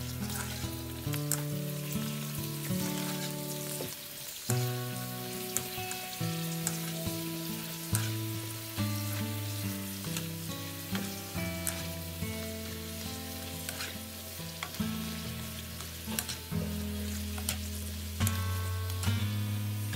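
Golgappa puris sizzling as they fry in hot oil in a wok, stirred with a wire skimmer, with scattered light clicks. Instrumental background music plays over it.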